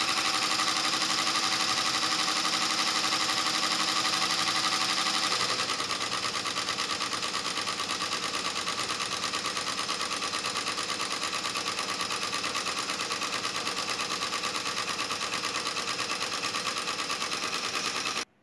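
Multi-needle embroidery machine stitching gold thread lettering into a terry towel, a fast, even, mechanical stitching rhythm. A steady hum under it drops out about five seconds in, and the machine runs slightly quieter after that.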